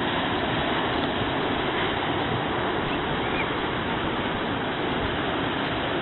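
Steady rush of ocean surf breaking, with wind.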